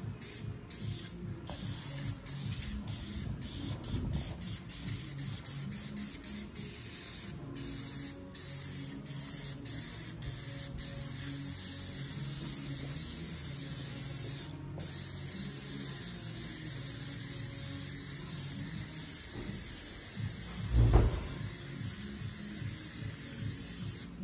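Spray adhesive hissing in long bursts broken by brief pauses, as glue is sprayed for the mat pads. A single dull thump comes near the end.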